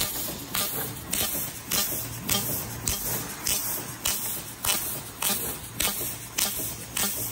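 A 6 kW fiber laser fly-piercing a metal plate: a short, sharp hiss at each pierce, repeating evenly nearly twice a second, over a steady low machine hum. These are clean, properly dialled-in pierces, as they should look.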